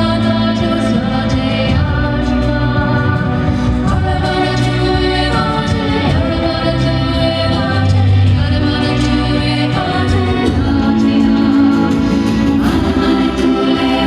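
Background music: a song with sung vocals over sustained chords and a steady bass line.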